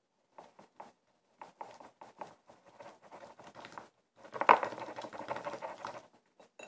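Glue and activator being stirred with a mixing stick in a container as they thicken into putty. An uneven run of short squishing clicks turns denser and louder about four seconds in, for roughly two seconds.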